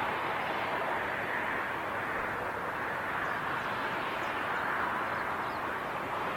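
Jet airliner engines heard as a steady rushing noise that swells gently.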